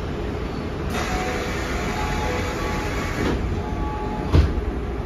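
Toei Oedo Line 12-600 series subway car's door chime sounding its short, lower-pitched tones while the sliding passenger doors close. The doors shut with a sharp thud about four seconds in, over the steady hum of the stopped train.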